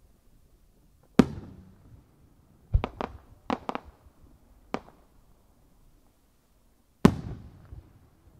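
Aerial firework shells going off. A loud bang with a trailing echo comes a little over a second in, then a quick run of four or five sharper cracks around three seconds in and one more near five seconds. A second loud bang with a long echo comes about seven seconds in.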